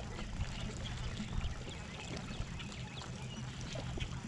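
Birds chirping here and there over a steady low hum.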